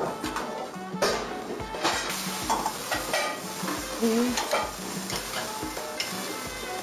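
Food sizzling in pans on a stove, with frequent clinks and knocks of utensils against pots and pans.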